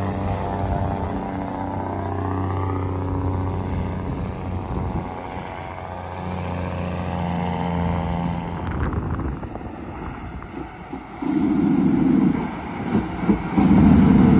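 Heavy diesel trucks labouring up a steep grade. A close truck engine runs under load, its pitch climbing a few times as it pulls away and fades. Then, about eleven seconds in, another diesel truck's engine grows loud as it comes up toward the listener.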